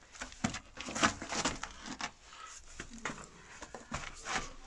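Irregular crunching footsteps and scuffs on loose rock and gravel, about two a second.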